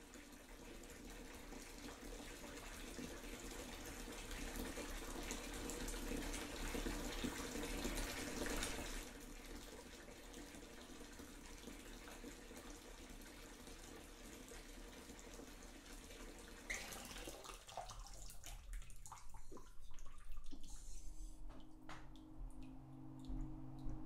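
Water running from a tap, an even rush that swells over the first several seconds, holds, then stops about two-thirds of the way through. Scattered small clicks follow, and a low steady tone comes in near the end.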